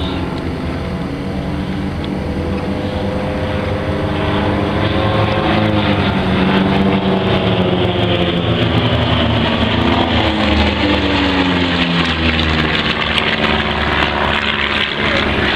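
Propeller airplane flying past, its engine growing louder from about four seconds in, with the engine note bending and then dropping as it passes.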